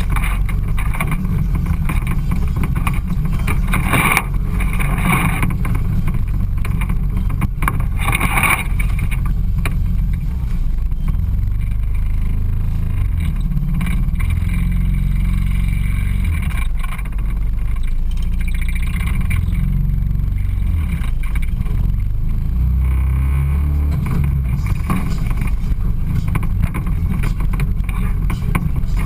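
Side-by-side off-road vehicle's engine running as it drives along the trail, its pitch shifting up and down with the throttle.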